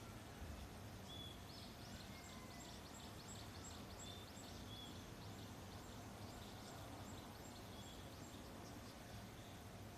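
Faint outdoor ambience: a steady low hum, with a bird chirping rapidly, about two high chirps a second, from about a second and a half in until near the end.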